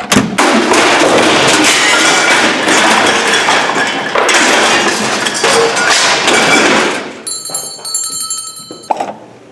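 Live radio-drama sound effects. A loud rushing noise surges for about seven seconds, then a bell rings for about a second and a half and is stopped with a knock.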